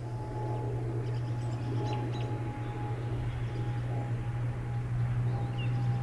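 Outdoor ambience: a steady low hum with a thin, steady high tone above it, and a few faint, brief bird chirps about two seconds in and again near the end.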